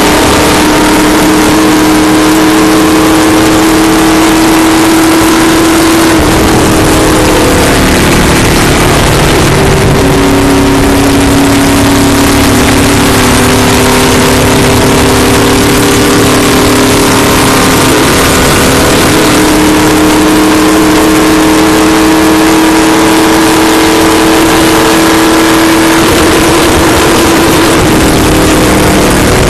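Stock car's V8 engine running flat out at around 150 mph, heard from inside the cockpit. It is a loud, steady engine note whose pitch dips slightly about six seconds in and again near the end.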